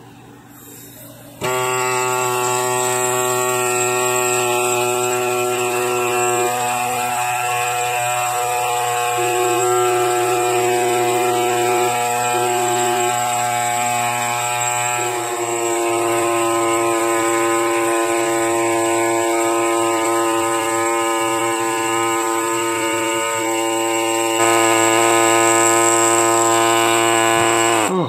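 Pneumatic air scribe buzzing steadily as its tip smooths concretion rock around a fossil crab's leg. It starts about a second in, its pitch shifts a few times as the tip is worked, and it runs louder for the last few seconds before cutting off near the end.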